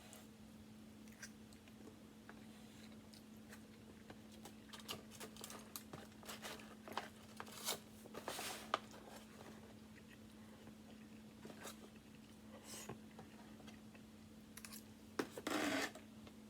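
A person eating a barbecue meal close to the microphone: chewing and biting with scattered small clicks, thickest in the middle, and a louder short burst near the end. A steady low hum runs underneath.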